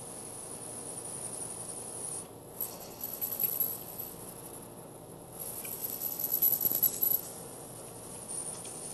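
Metal lathe running, with its cutting tool taking light cuts in a thin aluminum disc taped to the faceplate. Irregular scratchy cutting noise comes in two spells, about two and a half seconds in and again about five and a half seconds in, over the machine's steady hiss and high whine.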